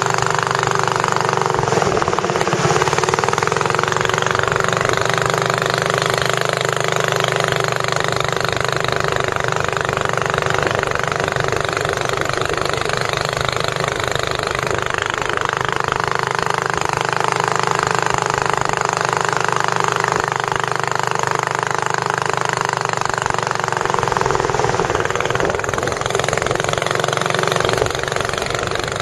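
Long-tail boat engine running steadily at speed, with a loud, even rattle.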